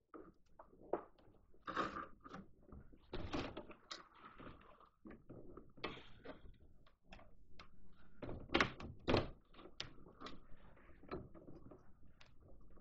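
Hand-fitting noises at the hitch of a plastic pulk sledge: scattered light knocks, clicks and rustles as a steel drawbar and its bolt are handled against the sledge, with two louder knocks about two-thirds of the way through.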